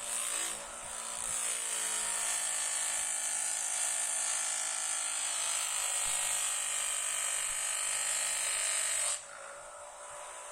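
Small high-speed electric power tool running. After a brief blip at the start it runs steadily with a high whine for about eight seconds, then cuts off suddenly near the end.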